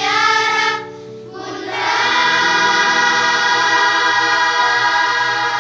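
Music with a choir singing: a short sung phrase, then a long held chord from about two seconds in.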